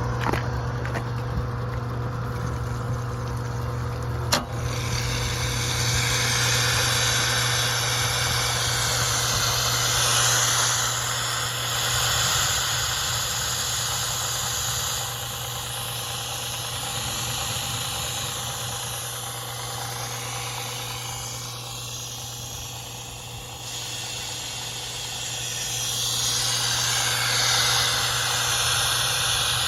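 Tokai TAP-150 ceramic power sprayer running steadily with a low hum. After a click about four seconds in, a loud high hiss of the pressurised spray jet starts, swelling and easing as the spray is worked.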